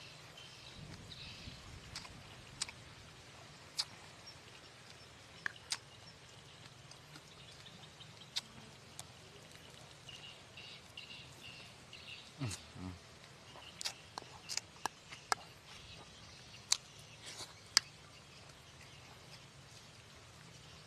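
Crisp, crunchy food being bitten and chewed close to the microphone: short, sharp crunches scattered irregularly, a few at a time.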